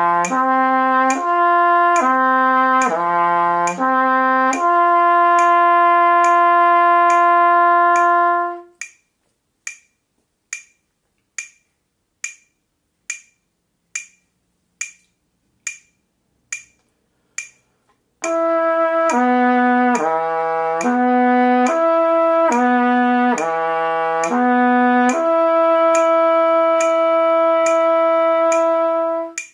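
Trumpet playing a slow lip-slur flexibility exercise: slurred quarter notes stepping down across three harmonics on one valve combination, ending on a long held note, over a metronome clicking at about 70 beats a minute. The trumpet stops about a third of the way in, leaving the metronome clicking alone for about ten seconds, then the same slur pattern comes again on the 1-2-3 valve combination, a half step lower, and ends on another long held note.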